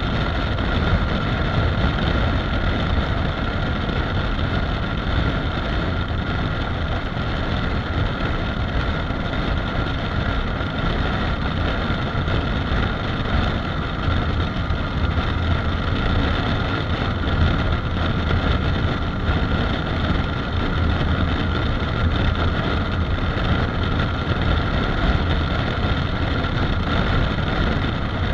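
Honda CRF250 Rally's single-cylinder engine running steadily at highway cruising speed, mixed with wind rush on the microphone. The engine and wind noise hold an even level with no changes in speed.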